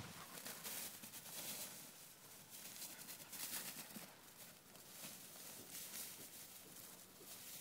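Faint rustling noise with soft, irregular footfalls through grass, with wind and handling noise on the phone's microphone.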